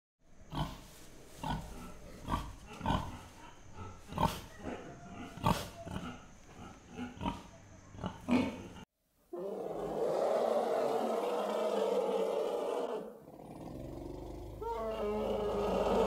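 Domestic pig grunting over and over in short separate grunts for about the first nine seconds. After a brief pause, elephants make a longer, steadier call that dips once and then swells again near the end.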